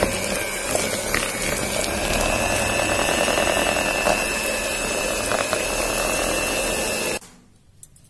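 Philips 300-watt electric hand mixer running, its beaters whipping softened butter in a plastic bowl, with a steady high whine and occasional clicks. It is switched off about seven seconds in and the sound cuts off suddenly.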